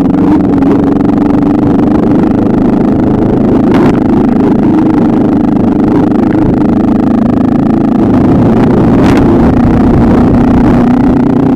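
Motorcycle engine running steadily under way, with road and wind noise; the engine note eases slightly lower about nine seconds in.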